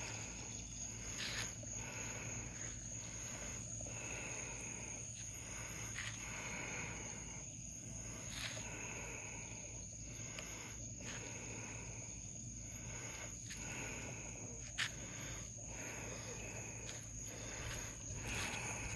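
Night insects calling outdoors: a steady high trill under a softer chirp that repeats every second or two. One sharp click sounds near the end.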